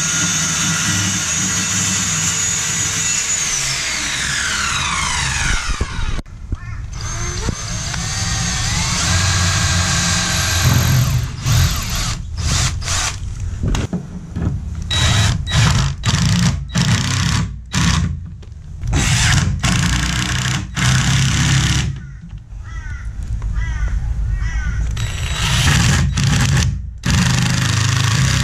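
A circular saw cutting through plywood, its motor whine falling as it winds down after about four seconds. Then a Ryobi cordless drill runs in many short bursts, drilling and driving screws into the plywood panel edges, with a longer steady run near the end.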